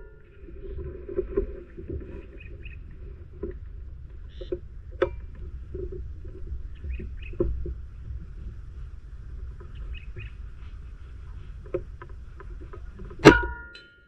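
A low steady rumble with a few light clicks, then about thirteen seconds in a single sharp crack: a QS Air Arms Mk3 BT .22 PCP air rifle firing a 21-grain slug, with a brief ring after the shot.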